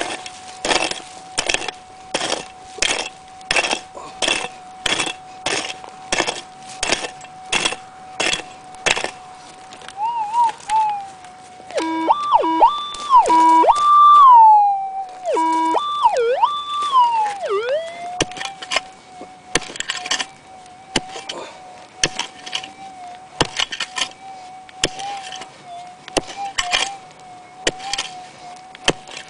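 Pick strikes into hard, stony soil, about one and a half a second at first and then more irregular, over the steady threshold hum of a gold-prospecting metal detector. Midway the detector gives loud warbling target signals, jumping and gliding up and down in pitch, as the coil passes over the hole: the sign of a metal target in the dug soil.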